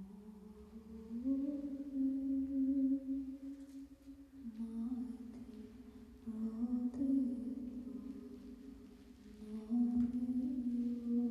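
A voice humming a slow, wordless melody in long held notes, stepping between a few pitches.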